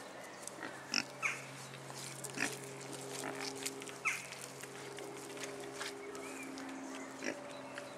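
Pigs grunting and squealing in short sharp calls, a few about a second in, then near two and a half and four seconds, over a steady low hum.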